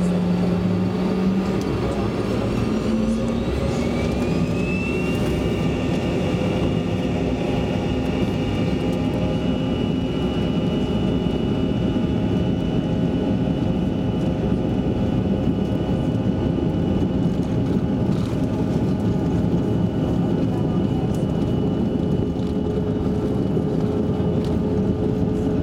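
Cabin sound of a CRJ regional jet's rear-mounted GE CF34 turbofans spooling up to takeoff thrust: a whine rises in pitch a few seconds in, then the engines run steadily at full power with a high whine over a dense rushing noise during the takeoff roll.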